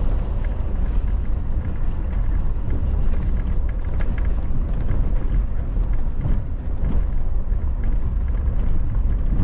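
Four-wheel-drive vehicle driving over a gravel desert wash: a steady low rumble of engine and tyres on gravel.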